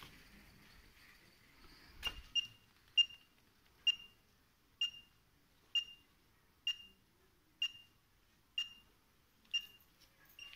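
Fingertip pulse oximeter beeping in time with the pulse: short high beeps a little under once a second, each marking a detected heartbeat. The beeps follow a single click about two seconds in.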